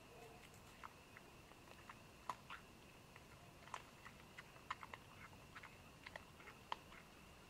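A feeding hog chewing: faint, irregular crunching clicks, a few a second, over a steady high-pitched hum.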